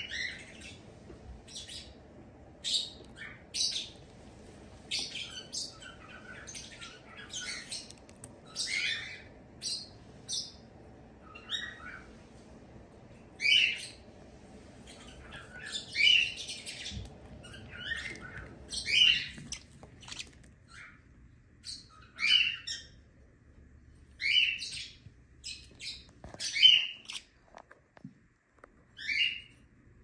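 Young rosy-faced (peach-faced) lovebird calling with short, high chirps, one every second or two.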